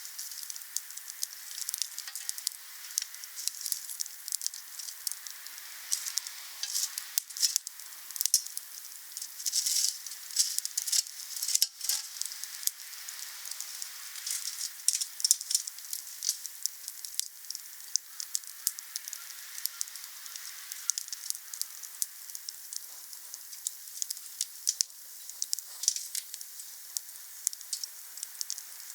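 Wood campfire burning, with a steady hiss and dense, irregular crackling and popping.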